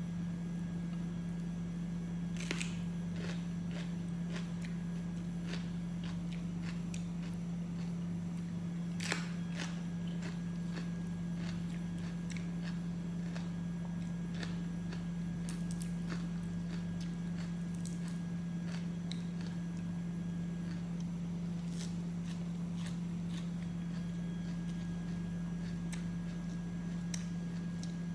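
Eating and food-handling sounds: scattered faint clicks and crackles as fried chicken and coriander leaves are pulled apart and chewed, over a steady low hum.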